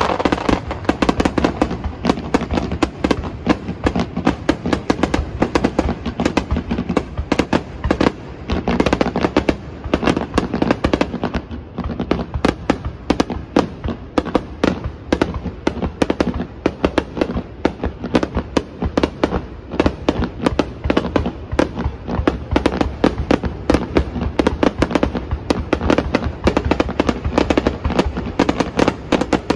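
Fireworks display: shells bursting overhead in a dense barrage, many sharp bangs a second following one another without pause.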